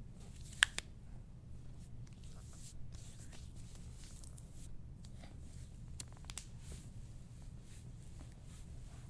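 Soft rustling and rubbing of hands and an elbow working over a patient's body and clothing during deep soft-tissue massage. One sharp click comes about half a second in, and a few fainter clicks follow later.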